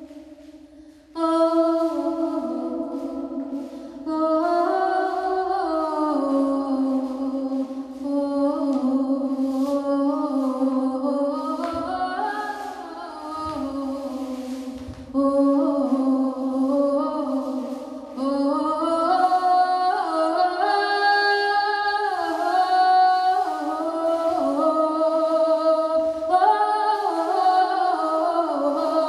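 Several voices singing a cappella in harmony, holding long notes that move in steps; the singing comes in loudly about a second in.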